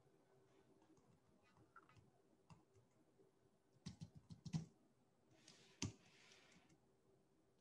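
Faint computer keyboard typing: a quick run of key clicks about four seconds in and a single click near six seconds, with a soft hiss around the second.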